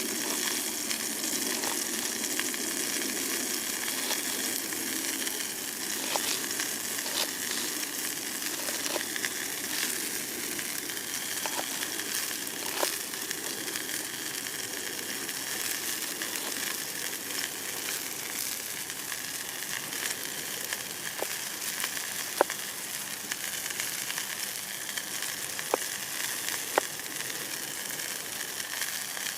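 Steak sizzling in a pan over a campfire: a steady frying hiss with occasional sharp pops.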